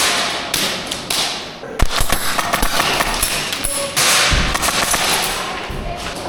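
Airsoft gunfire in close quarters: a run of sharp snapping taps and knocks, densest from about two seconds in, with BBs striking hard cover.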